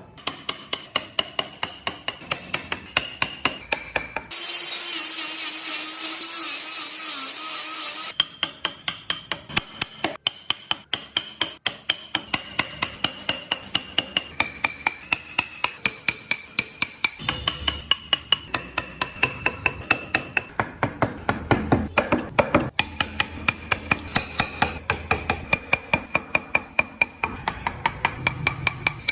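Woodworking tools on wood: rasping and rubbing with a steady run of sharp clicks about three a second. A power tool runs loudly for about four seconds near the start, a hiss with a low hum, then stops suddenly.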